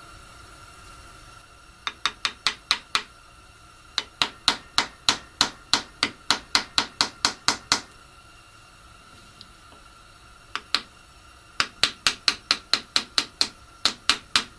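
A ratchet tool clicking in quick, even runs of about five clicks a second, with pauses between runs, as screws are backed out of a chainsaw carburetor's cover.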